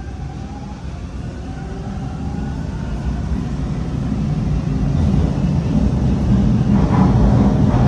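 TTC T1 subway train pulling out of the station, heard from inside the car. The low rumble of motors and wheels grows steadily louder as it picks up speed.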